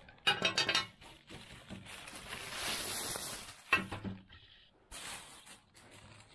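Objects being handled and rummaged through: a few knocks and light clattering with rustling in between.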